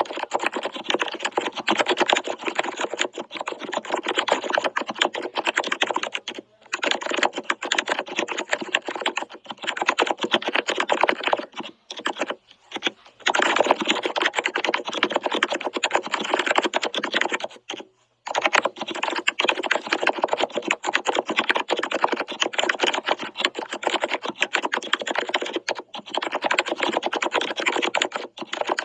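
Fast, continuous typing on a computer keyboard, a dense run of key clicks that stops briefly a few times.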